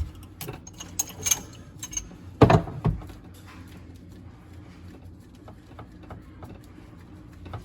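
Metal wrenches clinking and knocking against a just-loosened plumbing fitting under a sink. Two louder knocks come about two and a half and three seconds in, followed by faint scattered ticks.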